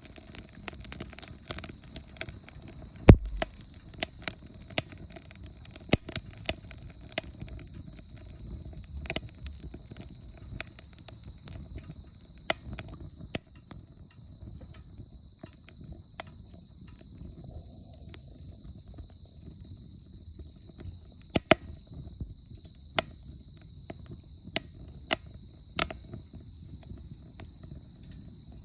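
Wood fire crackling in a Solo Stove Campfire stainless steel fire pit: irregular sharp pops and snaps, the loudest about three seconds in. Under it runs a steady, high-pitched chirring of insects.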